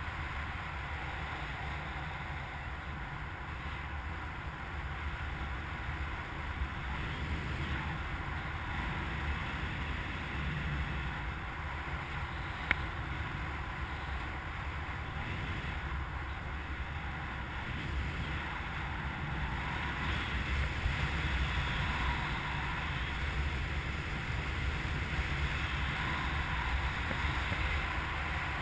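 Steady rush of airflow over the camera's microphone as a hang glider flies, getting a little louder in the second half, with a single sharp click about halfway through.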